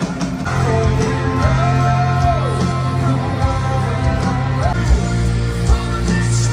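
Live rock band playing: drums, a steady bass note and a lead melody that holds long notes and slides down in pitch.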